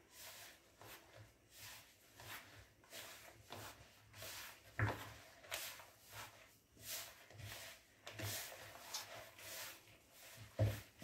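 Soft cookie dough being kneaded by hand in a plastic bowl: faint repeated squishing and rubbing strokes, about two a second, with two sharper knocks, one about five seconds in and one near the end.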